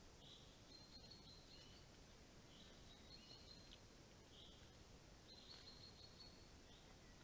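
A faint, short high-pitched call repeated about every second and a half: each is a brief noisy chirp that runs into a short steady whistle.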